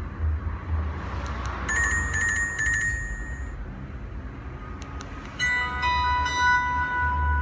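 Sony Ericsson K300i mobile phone ringtones playing: a short pulsing electronic beep pattern for about two seconds near the start, then a new polyphonic ringtone melody of clean sustained notes starting about halfway through. A steady low hum runs underneath.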